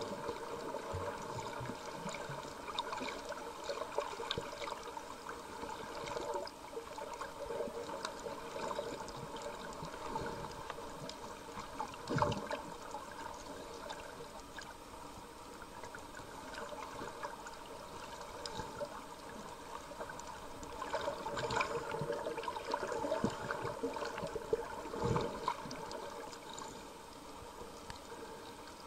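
Underwater sound picked up by a snorkeller's camera: a muffled, even water noise sprinkled with many short clicks and crackles, with a sharper knock about twelve seconds in and another near twenty-five seconds.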